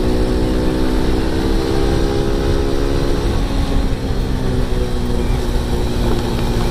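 Motorcycle engine running at a steady cruising note, easing off briefly a little past halfway, under heavy wind rumble on the rider's helmet microphone.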